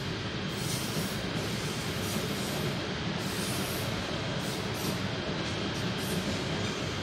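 KTM ETS electric multiple unit running on the line: a steady rumble of wheels on rail, with a faint thin high whine.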